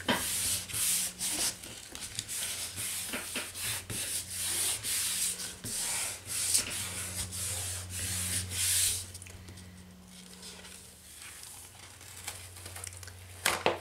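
Hands rubbing the back of a sheet of paper pressed onto a gel printing plate, a quick run of dry rubbing strokes that stop about nine seconds in. Near the end the sheet is peeled up off the plate.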